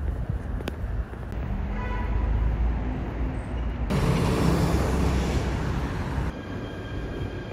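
Subway train running: a steady low rumble with some steady whining tones, and a louder rushing stretch in the middle that starts and stops abruptly.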